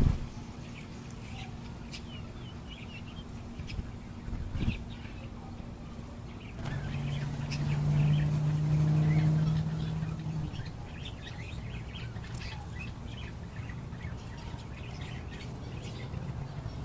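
Birds chirping in short, scattered notes throughout. A steady low hum swells in about a third of the way in and fades a few seconds later.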